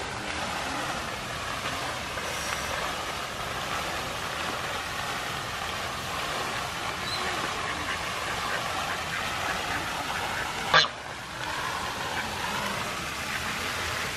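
Steady splashing rush of a pond fountain, with one sharp knock about eleven seconds in.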